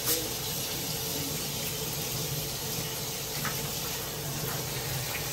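Kitchen tap running steadily into the sink while rice is being washed, with a brief knock right at the start.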